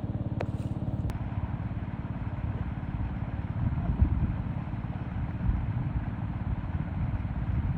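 A small engine running with a steady low rumble, with a couple of light clicks in the first second.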